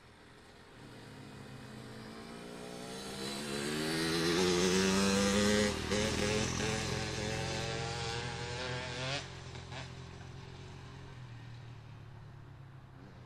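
A motorcycle riding past: its engine note rises, steps up in pitch twice as it shifts gears, is loudest about five seconds in, then fades away.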